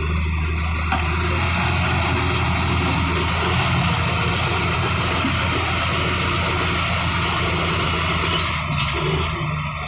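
Komatsu D155 bulldozer's diesel engine running steadily at a constant speed, a deep even hum with a few faint ticks near the end.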